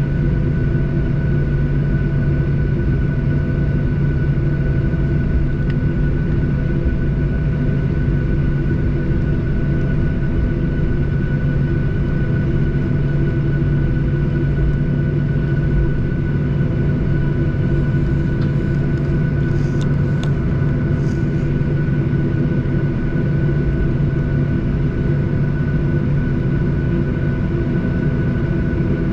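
Cabin noise of a Boeing 737-800 taxiing, its CFM56-7B turbofans running at low taxi thrust: a steady low hum with a thin, steady high whine.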